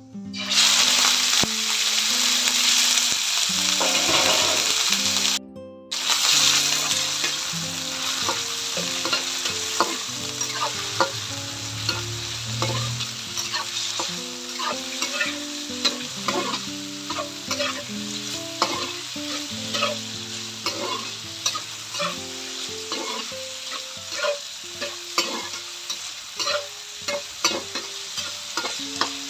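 Chicken pieces hitting hot oil in a wok and sizzling loudly from about half a second in, then frying steadily while a metal spatula stirs and scrapes them, with many small pops and clicks. The sizzle cuts out briefly near six seconds in.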